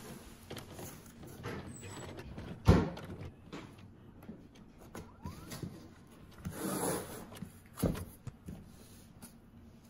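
Hands handling a large cardboard box on a wooden table: a sharp knock a few seconds in, the loudest sound, then a brief rustling scuff and a second knock near the end, over faint room noise.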